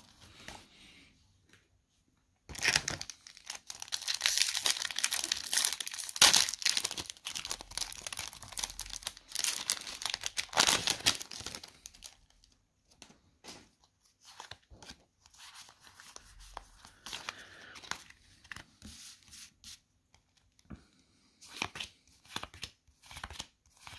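Foil Pokémon booster pack wrappers being torn open and crinkled by hand. After a short quiet start, dense crinkling runs for several seconds, then gives way to sparser, quieter crackles and clicks, with another burst near the end.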